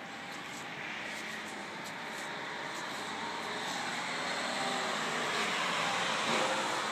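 Engine noise, a steady rumble with hiss that grows gradually louder.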